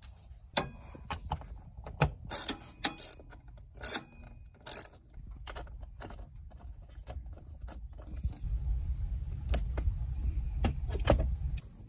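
Metal clicks and clinks of a ratchet and a 7 mm socket being handled and snapped together, some with a short metallic ring. Later comes a low rumble with scattered plastic clicks as the seat's wiring connector is worked loose under the seat.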